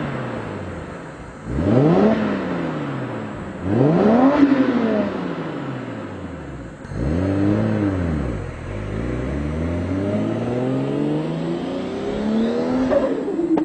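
Toyota JZX100's straight-six engine free-revving through an HKS Super Turbo Muffler. There are three quick throttle blips, each rising and falling back, then a slower rev that climbs for several seconds and drops back near the end.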